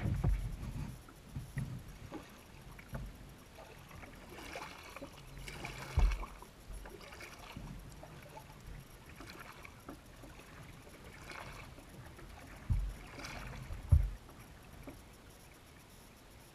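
Kayak paddle strokes: the blades dipping and splashing in river water every second or two, with a few low knocks, the loudest about six seconds in and near fourteen seconds. The strokes stop near the end.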